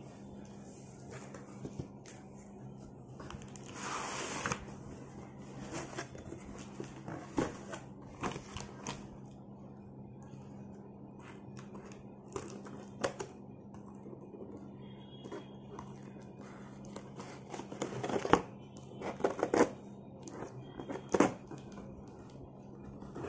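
Cardboard boxes being handled: a long scrape and rustle as an inner carton is slid out, then scissors cutting packing tape and cardboard, with a cluster of sharp snips and rustles near the end. A steady low hum runs underneath.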